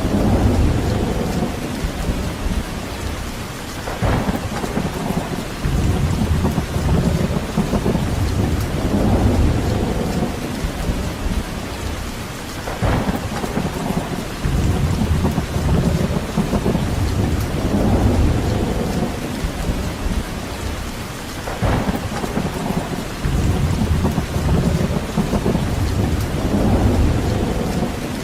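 Steady rain falling, with deep rumbles that swell and fade every few seconds, a few of them starting with a sharper crack.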